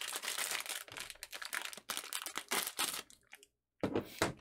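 Plastic MRE packaging crinkling and rustling as it is handled and rummaged through, in a run of irregular crackles. The sound cuts out briefly about three-quarters through, then resumes.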